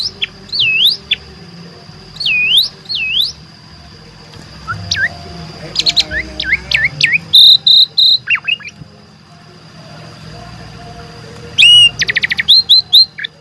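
Javan pied starling (jalak suren) singing loudly. Its song has repeated swooping whistles, then a burst of chattering and short high notes around the middle, a pause, and a fast run of rattling notes near the end, over a steady high-pitched tone.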